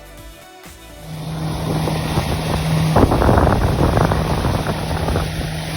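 Music cuts out about a second in. Then a motorboat's engine runs at a steady speed, with wind buffeting the microphone.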